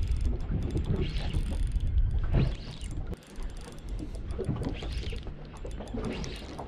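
Wind rumbling on the microphone and water noise on a small open boat, heaviest in the first half. Light mechanical clicking comes from a spinning reel as a hooked fish, an Australian salmon, is played on the rod.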